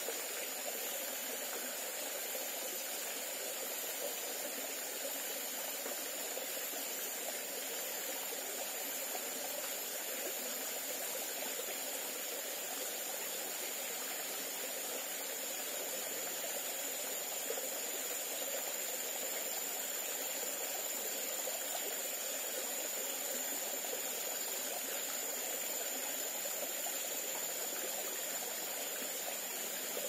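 Small forest stream trickling over a rocky step into a pool: a steady, even rush of running water. A thin, steady high-pitched tone sits above it throughout.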